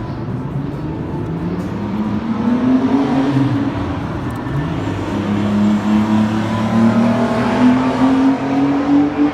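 Supercar engine accelerating, its note climbing in pitch about two seconds in, easing, then climbing again and getting louder through the second half.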